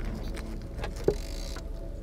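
A knife cutting through a piece of barracuda for shark bait on a boat's deck, with a sharp knock about a second in, over a steady low rumble.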